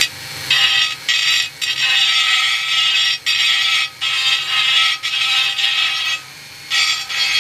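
Hand sanding on a Yamaha FZR's motorcycle wheel rim, shaping the hardened JB Weld filler in a dent: a run of rough scraping strokes with short breaks between them.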